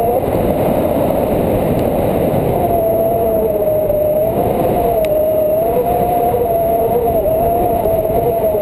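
Rushing airflow buffeting an action camera's microphone during tandem paraglider flight, a loud steady rumble. A thin, wavering whistle runs over it, becoming clear about two and a half seconds in.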